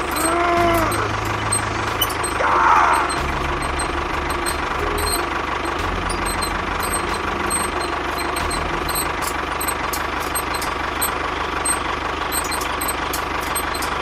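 Tractor engine running steadily, as if towing a load. About half a second in there is a short call that rises and falls in pitch.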